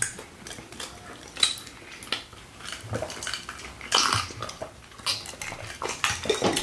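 Scattered light clinks and knocks of tableware: stemmed glasses and plates handled on the table, a few sharp ticks spread over several seconds.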